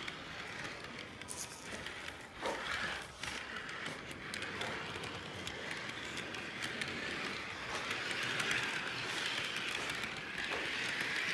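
Model train running along its track, heard up close from on board: a steady rattling rumble of wheels and motor with many small clicks, getting a little louder in the second half.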